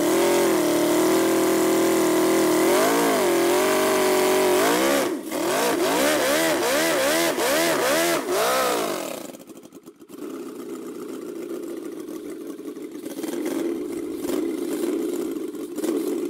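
Small V8 engine running at a steady, fairly high speed, then revved up and down in about six quick blips. About ten seconds in it drops back to a quieter, rougher steady run.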